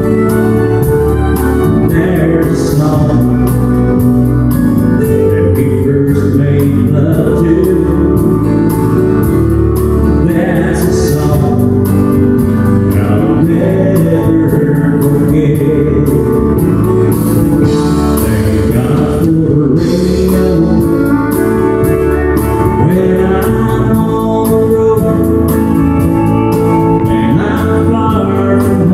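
A country band playing live: a man singing over acoustic guitar and drums.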